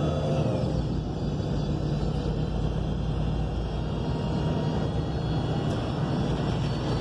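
Interior sound of a city bus under way: steady low rumble from its Cummins Westport L9N natural-gas engine and drivetrain, with road noise. A whine falls in pitch and fades out about a second in.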